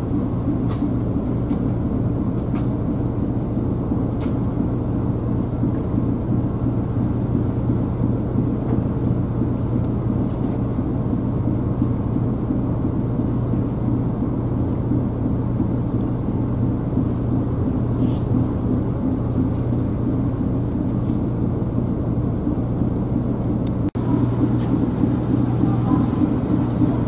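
JR Miyajima ferry's engine running with a steady low hum, heard from the deck. It gets somewhat louder about three-quarters of the way in as the ferry comes alongside its pier.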